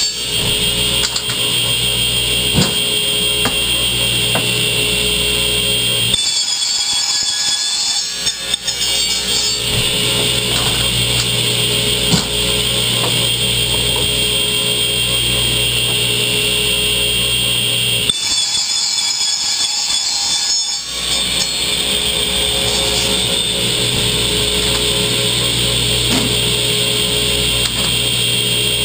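Ridgid radial arm saw running with a steady high whine while white plastic pipe is cut into lengths, with music playing along.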